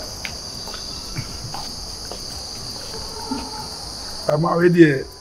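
A steady, high-pitched insect chorus runs without a break. A person's voice comes in briefly near the end.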